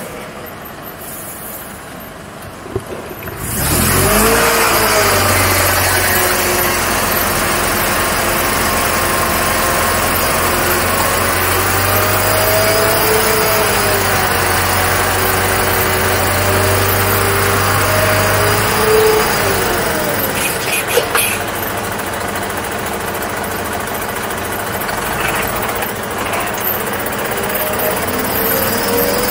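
Unimog U 5000's 4.7-litre four-cylinder diesel engine pulling the truck slowly over the off-road course, its pitch slowly rising and falling with the throttle. It comes in loudly about three and a half seconds in after a quieter start, and a few short clicks are heard about two-thirds of the way through.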